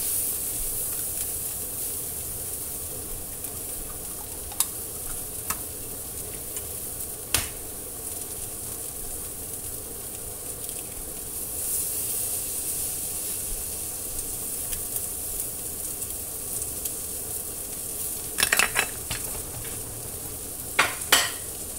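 Egg frying in a stainless steel skillet of chopped greens, sizzling steadily and louder as the egg goes in at the start. A few sharp clicks and knocks on the pan, several of them near the end.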